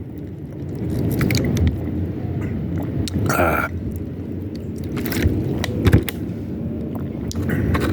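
Wind buffeting the microphone with a steady low rumble, broken by scattered knocks and clicks from paddling a kayak, including a brief splash-like burst about three and a half seconds in.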